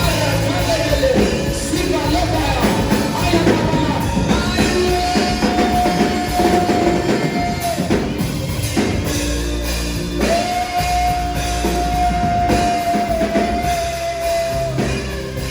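Live gospel worship music: a band playing with a voice singing, including two long held notes of several seconds each.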